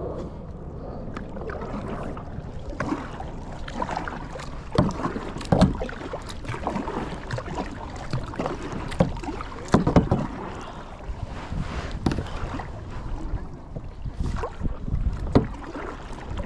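Kayak paddle strokes splashing in the water at irregular intervals, with water sloshing against the hull and some wind noise on the microphone.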